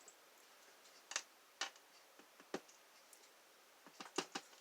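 Light metal clicks of small lock parts, the pins of a disassembled pin-tumbler lock being dumped out and handled: a few scattered single ticks, then a quick run of three near the end.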